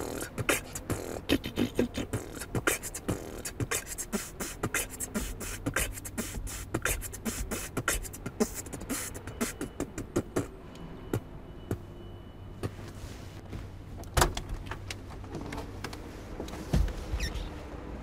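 A woman's mouth percussion (beatboxing): quick clicks, pops and hissing strokes in a loose rhythm, growing sparser about halfway through. A low thud comes near the end.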